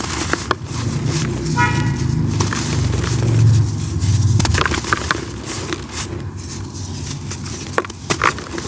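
Dry red dirt clumps crumbling in crisp, irregular crackles. Under them, a low vehicle rumble swells through the first half, and a short car horn toot sounds less than two seconds in.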